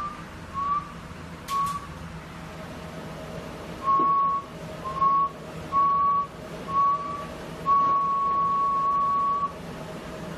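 Whistling at a single pitch in short, irregularly spaced notes, each bending up slightly, then one long held note of about a second and a half near the end, over a faint steady lower tone.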